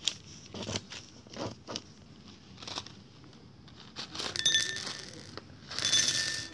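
A paper packet crinkling as it is handled, then small faceted beads poured from it clattering into a glass bowl in two pours, about four and six seconds in, with a ringing tone from the bowl.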